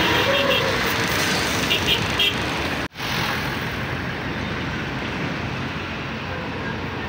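Heavy truck engine and road traffic running steadily, with rapid runs of short high beeps twice in the first few seconds. The sound cuts off abruptly about three seconds in and resumes as a steadier, slightly quieter engine and traffic noise.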